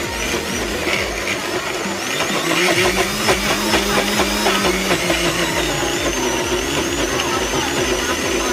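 Xtrem Resist countertop blender running steadily, its motor whirring as it purées a tuna and crab sandwich filling in the jar.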